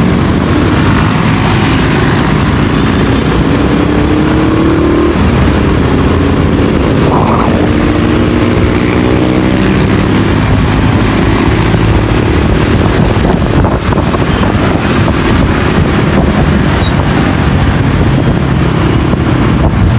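Motorcycle engine running under way in traffic, its pitch climbing twice as the bike speeds up, over a steady rushing noise.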